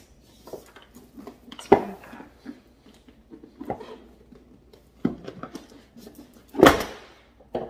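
Rigid cardboard gift box being handled on a kitchen countertop: scattered knocks and scrapes as it is set down and its lid is worked off, with a sharp knock about two seconds in and the loudest thump near the end.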